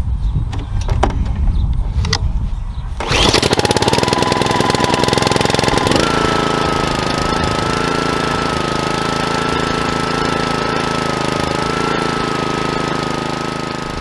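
Honda GCV160 lawn mower engine starting suddenly about three seconds in after a low rumble with a few clicks, then running steadily; it speeds up and settles to a steady pitch about six seconds in. It runs normally again now that its clogged fuel-cap vent has been cleared.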